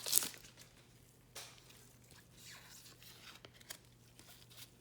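Faint, scattered rustles and slides of trading cards being handled and flipped through by hand, with a louder crinkle just at the start.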